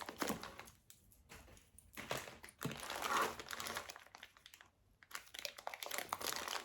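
Plastic bag crinkling in several bursts as it is handled, with a few light clicks among the rustling.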